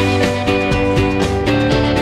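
Background music with plucked or strummed guitar and a steady beat.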